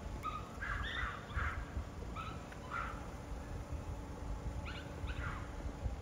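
Crow cawing: harsh, short calls in groups of two or three, about half a second apart, repeated three times.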